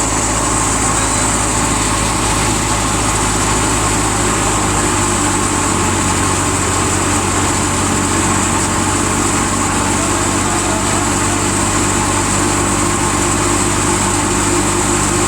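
Massey Ferguson 240 tractor's diesel engine running steadily at an even speed while harvesting wheat, with a steady high hiss above it.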